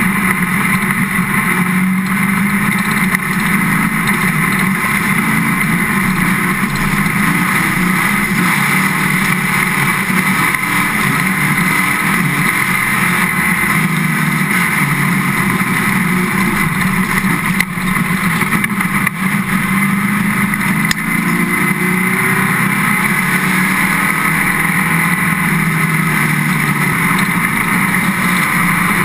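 Dirt-track race car's engine running hard at racing speed, heard loud from inside the car. The note stays nearly steady, with small rises and falls in pitch through the turns.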